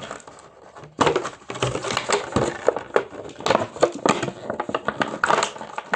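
Hands working small plastic toy pieces out of their packaging: rapid, irregular clicking and crackling of plastic. The fiddling starts about a second in and runs on densely after that.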